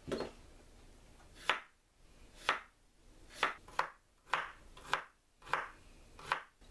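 Chef's knife cutting daikon radish into matchsticks on a wooden cutting board: about nine slow, uneven strokes, each ending in a sharp knock of the blade on the board.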